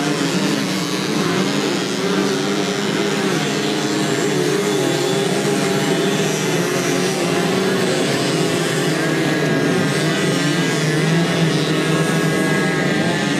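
Several small moped engines buzzing together at different pitches that waver up and down as they race. A higher, steadier whine joins in for the last few seconds.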